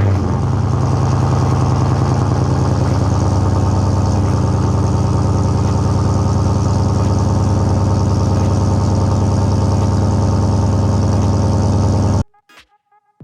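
Holden's LS1 5.7-litre V8 running at a steady fast idle just after a cold start, heard through its exhaust. It cuts off abruptly near the end.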